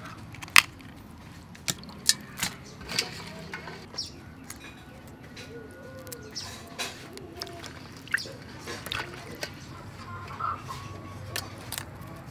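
Raw blue crabs being cleaned by hand in a basin of water: scattered sharp clicks and cracks of shell and legs being handled, with faint bird calls behind.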